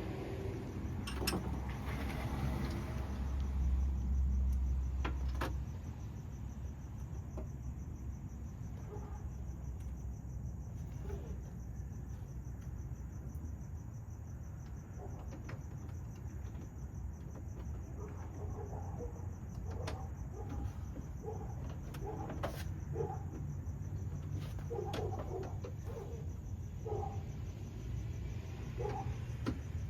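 Background ambience: a steady high cricket trill over a constant low rumble, with a few sharp clicks and short bird-like chirps.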